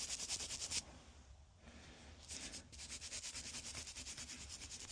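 Quick back-and-forth scrubbing strokes cleaning the buildup off a furnace's flame sensor. The strokes stop about a second in and start again after a short pause.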